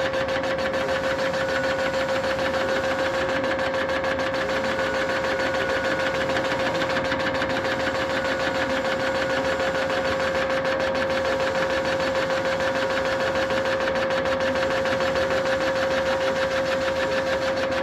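CNC line boring machine cutting the main bearing bores of a Mopar 512 stroker engine block: a steady machining drone with one constant mid-pitched tone over a fine, rough chatter.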